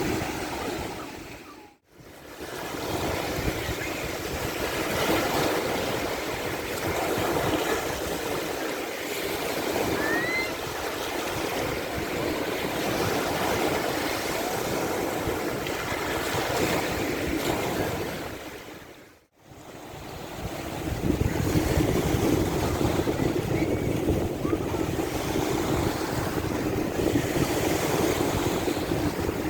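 Sea waves washing onto a sandy beach, a steady rush of surf. It cuts out to silence for a moment twice, about two seconds in and again near the middle, and the surf is louder and deeper in the last third.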